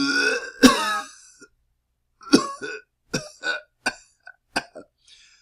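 A person coughing from the chest: a voiced, harsh cough about half a second in, then after a short pause a run of short, quieter coughs that die away.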